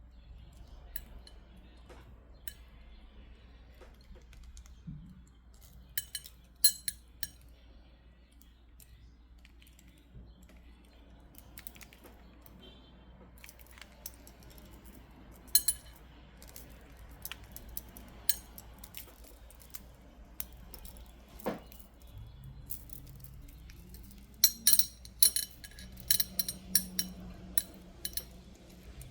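Scattered sharp little clicks and clinks of black tourmaline and clear quartz beads and jewellery wire being handled, with a quick run of clicks near the end.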